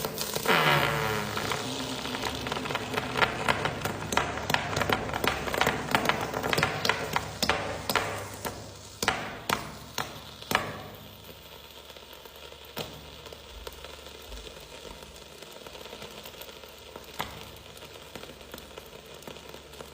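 Sizzling and crackling of a hot 'volcano ball' melting into chocolate: dense sharp pops for the first ten seconds or so, then dying down to a quieter steady hiss with an occasional tick.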